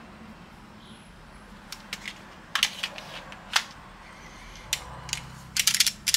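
Sharp clicks and knocks from handling an airsoft pistol and its gas magazines, scattered at first and then a quick run of clicks near the end.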